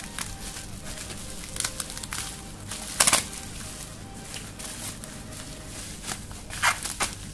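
Plastic bubble wrap crinkling in short bursts as it is handled and unwrapped by hand, the loudest burst about three seconds in.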